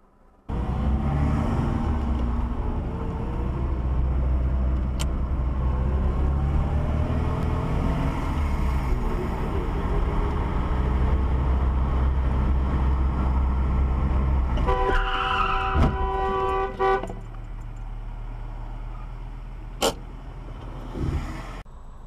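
Steady road and engine noise of a moving car, then a car horn sounds for about two seconds about fifteen seconds in. A single sharp click follows a few seconds later.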